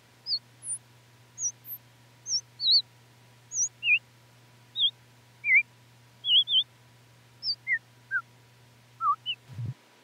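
Sparse synthesized bird-like chirps: short, identical dip-and-rise blips, about two a second, jumping between high and low pitches. Under them runs a faint steady low hum and a thin steady tone.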